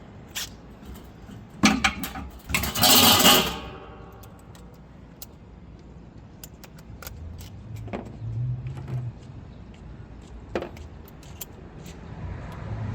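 Metal hand tools clinking and rattling as they are picked up and handled. There are a couple of sharp knocks, then a loud ringing metallic jangle about three seconds in, followed by scattered light clicks.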